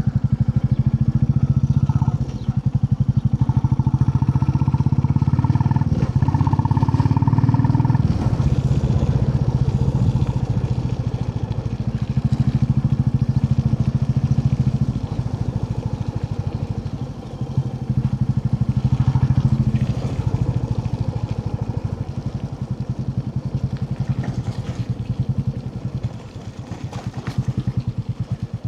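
Royal Enfield Classic 350's single-cylinder engine running on the move with its fast, regular pulse, the throttle easing off and opening again several times.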